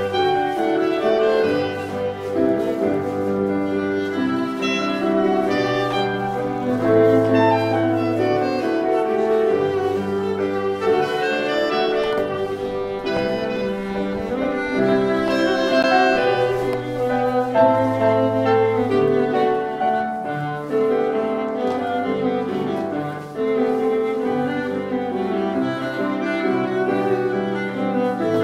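Instrumental music for country dancing, with bowed strings and piano, playing continuously without a break.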